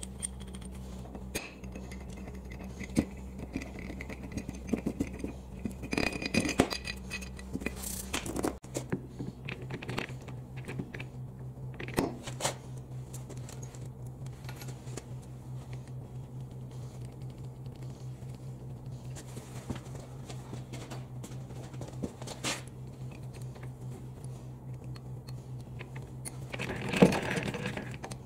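Small metal clicks, clinks and scrapes as a repaired handle is handled and fitted to the carriage handwheel of a Harrison M300 lathe, over a steady low hum. A louder scrape comes near the end.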